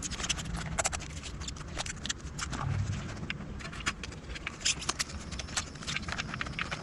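Irregular clicks, taps and scrapes of a padded soft bag and its straps being handled while a battery is fitted inside it.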